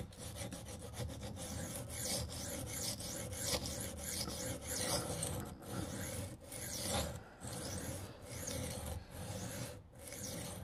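Steel knife blade scraped back and forth across a cheap sharpening stone in a run of repeated strokes, with finger pressure on the blade: freehand sharpening to grind the edge bevel flat.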